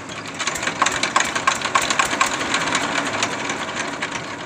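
Single-cylinder diesel engine on a homemade utility vehicle starting up and running with a rapid, even knock. It gets louder about half a second in as it picks up speed.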